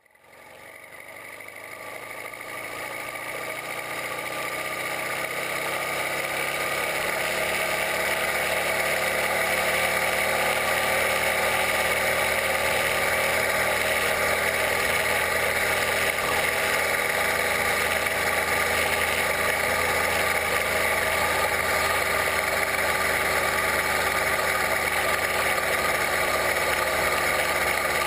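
Chinese 66/80cc two-stroke bicycle kit engine running steadily under way, its pitch wavering slightly; it fades in from silence over the first several seconds.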